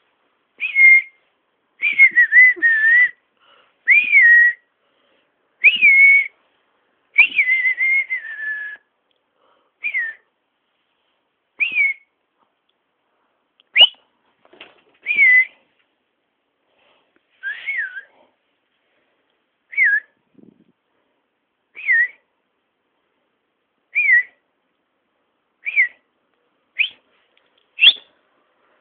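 A person whistling short, breathy notes near one pitch, each bending up or down, repeated every second or two to charm a cat. A few notes run longer in the first few seconds, and the last ones near the end sweep sharply upward.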